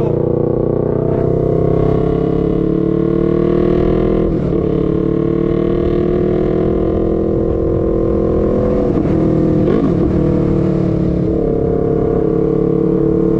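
Yamaha YZF-R3's parallel-twin engine pulling along at steady throttle, its note climbing gradually, with two brief dips in pitch about four and nine seconds in.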